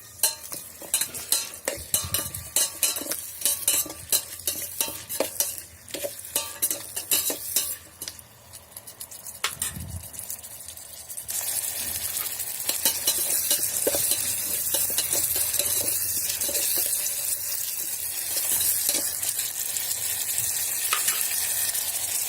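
An onion-tomato masala being stir-fried in a pan: a spatula clicks and scrapes against the pan while the oil sizzles. About eleven seconds in, the sizzle turns louder and steady, with only occasional clinks.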